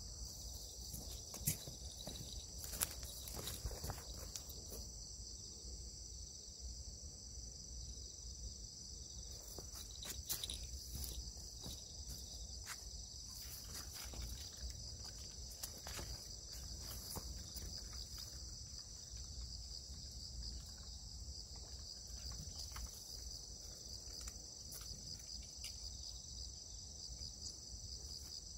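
Steady high-pitched insect chorus, crickets shrilling without a break. Scattered sharp clicks and rustles, two louder ones in the first few seconds, come from fishing rods and a spinning reel being handled at the rod rest.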